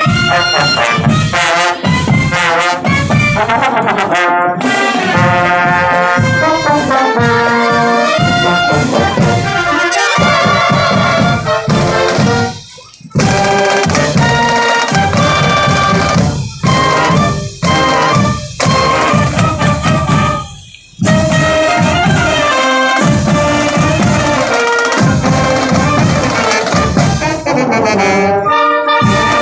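Marching band playing a brass tune, trumpets and trombones over marching drums. The playing breaks off briefly twice, about 13 and 21 seconds in.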